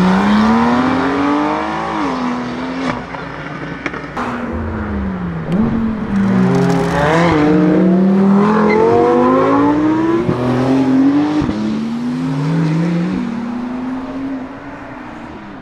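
Turbocharged sports cars, Porsche 911 Turbo S models and a McLaren, accelerating hard away one after another. The engine pitch climbs and drops sharply at each upshift. The sound fades as the last car pulls away near the end.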